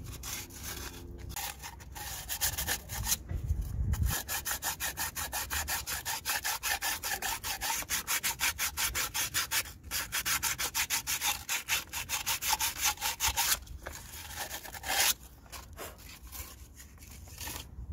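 Very fine sandpaper rubbed by hand back and forth over the engine's thermostat housing mating face, a quick even rhythm of strokes that stops about three-quarters of the way through. It is cleaning the surface before silicone sealant is applied.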